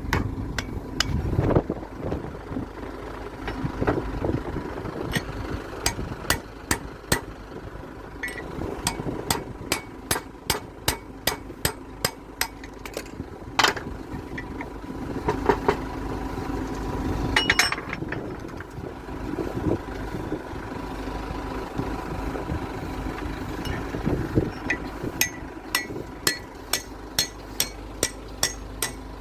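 Hammer striking metal again and again, each blow ringing, in runs that quicken to about two or three strikes a second near the end, while a centrifugal pump is knocked apart. A steady machine hum runs underneath.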